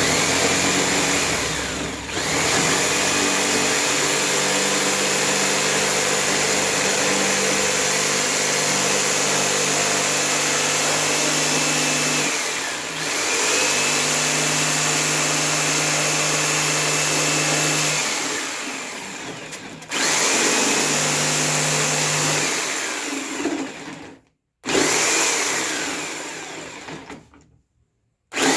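Electric saw cutting heart shapes out of a wooden board. The motor is run in several stretches of a few seconds each, spinning up at each start and winding down at each stop, with short bursts near the end.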